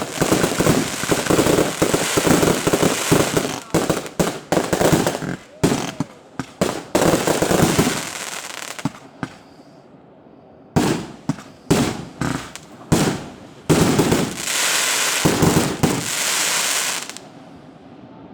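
Fireworks display: a rapid barrage of shell bursts and bangs for the first several seconds, thinning out after about eight seconds into single loud bursts and long crackling, hissing showers, then dying away near the end.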